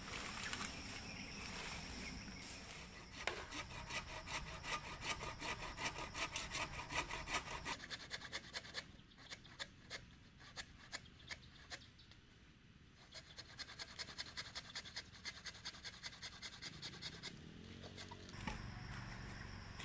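Hand saw cutting through a bamboo pole in quick back-and-forth strokes, starting about three seconds in, slowing to sparser strokes in the middle and speeding up again later.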